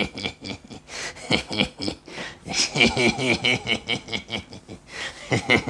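A man making wordless, playful vocal noises, with the rustles and knocks of a cardboard box being handled.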